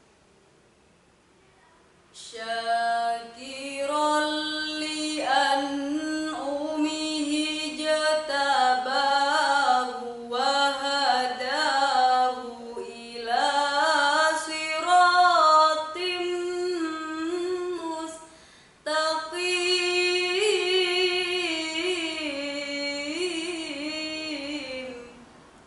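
A girl's solo voice reciting the Quran in melodic tilawah style: long held notes that waver and turn in pitch, coming in about two seconds in. There is a short pause for breath about three-quarters of the way through before the next phrase.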